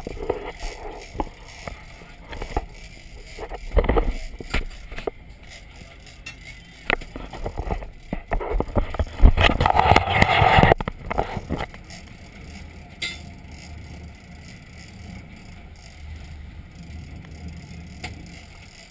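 Sportfishing boat running at sea, a low steady rumble under irregular loud noisy bursts about four seconds in and again from about eight to eleven seconds in.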